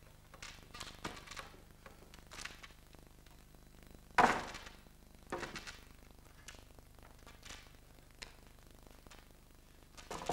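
Hinged metal pole frame being swung and folded into a square by hand: scattered light knocks and clicks, with a loud knock about four seconds in and another a second later.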